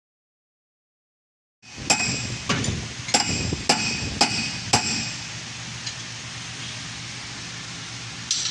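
Six sharp metallic knocks, about two a second, each with a brief ringing, then a steady low hum with one more knock near the end.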